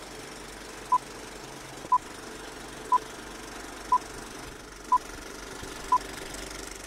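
Film-leader countdown sound effect: a short, high beep once a second, six times, over the steady whirr and clatter of a running film projector.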